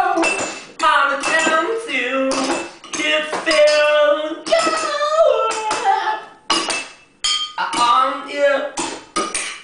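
A voice singing and vocalising wordlessly in held, bending notes, over clinks and knocks of dishes and cutlery struck as percussion.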